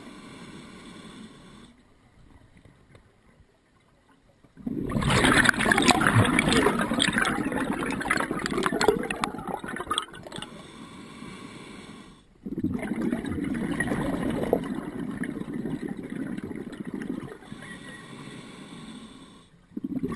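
Scuba diver breathing underwater through a regulator. There are long bursts of exhaled bubbles, three of them, separated by quieter pauses between breaths.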